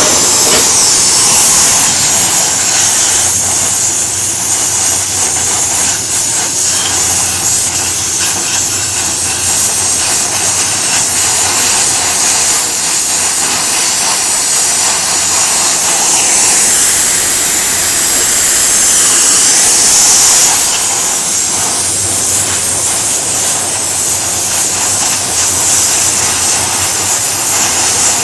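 Oxy-acetylene welding torch flame, a loud steady hiss that swells slightly about two-thirds of the way through.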